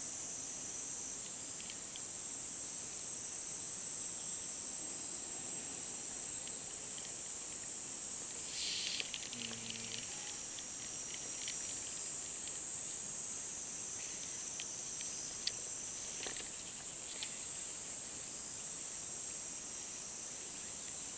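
A steady, high-pitched chorus of summer insects, which shifts and thins for a moment about nine seconds in and again around sixteen seconds.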